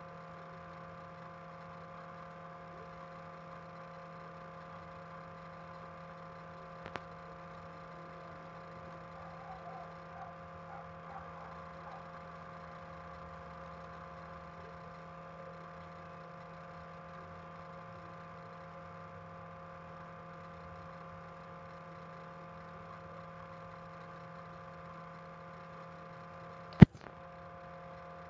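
Steady background hum made of several held tones, with a small click about seven seconds in and one sharp, loud click near the end.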